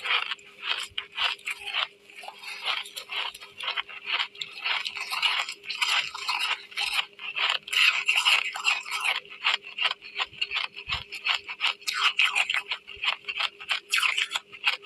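A person biting and chewing chunks of white ice close to the microphone: dense, irregular crunching and grinding with no pause. A faint steady hum runs underneath.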